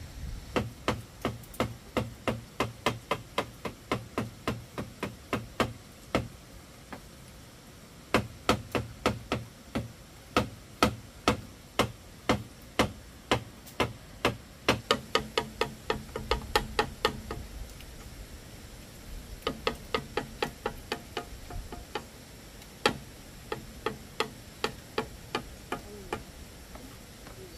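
Hammer driving nails into bamboo and wooden boards: runs of sharp blows about two a second, with short pauses between runs.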